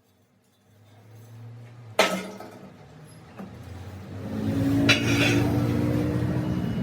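A single loud metallic clank with a short ring about two seconds in, then a smaller knock, then an engine starting up and running steadily at a low drone through the end.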